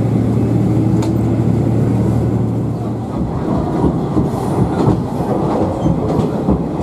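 A diesel railcar running along the rails, heard from inside the cabin. A steady engine hum fills the first three seconds or so, then gives way to an uneven rumble with wheel clatter on the track.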